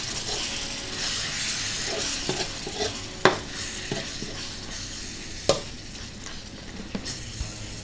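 Chicken offal in red curry paste sizzling in a wok while a metal ladle stirs it, scraping and knocking against the pan. Two sharp clinks of the ladle on the wok, a little over three seconds in and about five and a half seconds in; the sizzle thins out toward the end.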